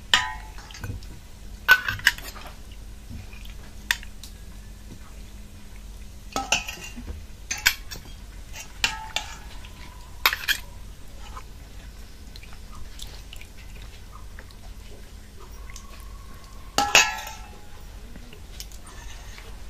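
Stainless steel ladle and bowls clinking as curry is served: scattered sharp metallic clinks, each with a short ring, the loudest just after the start and again near the end.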